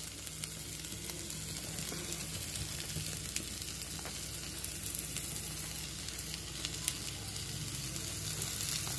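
Sliced onion, capsicum and green chilli sizzling steadily in hot oil in a kadai, with a few faint clicks.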